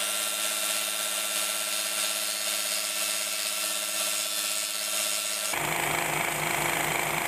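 Bench belt sander running while a small wooden block is sanded against its belt: a steady motor hum under a loud grinding hiss. About five and a half seconds in, the sound turns lower and rougher.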